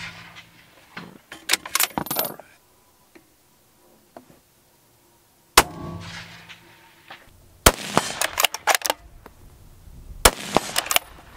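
.308 bolt-action precision rifle firing: three sharp shots a couple of seconds apart. Bursts of shorter cracks and clanks sit between them.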